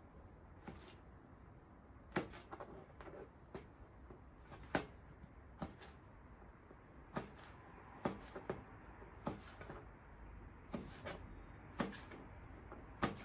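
Kitchen knife chopping pickled chili peppers on a plastic cutting board: short, sharp knocks of the blade against the board at an uneven pace, about one a second.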